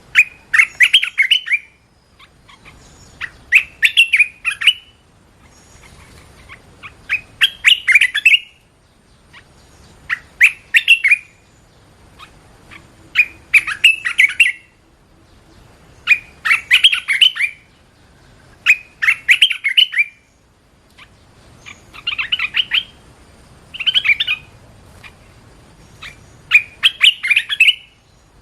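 Red-whiskered bulbul singing: short, bright, chirpy song phrases repeated about every two to three seconds, around ten phrases in all, with brief pauses between them.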